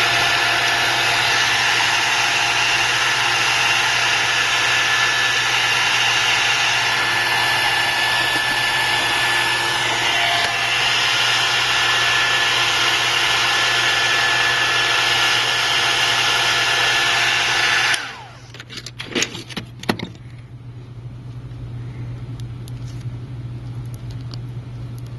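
Heat gun blowing hot air steadily to soften the adhesive under an iPad mini's glass: a loud fan hiss with a steady whine. It switches off suddenly about three-quarters of the way through, followed by a few light clicks and a faint low hum.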